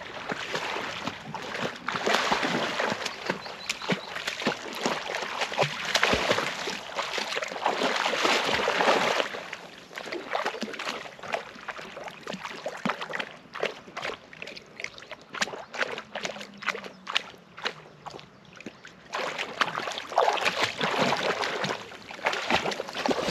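A dog wading and paddling in shallow lake water, splashing and sloshing: heavier splashing for several seconds starting about two seconds in and again near the end, lighter sloshing with small separate splashes in between.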